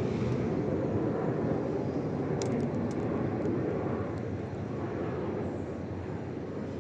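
Electric suburban train running past, a steady rumble that slowly fades over the last few seconds.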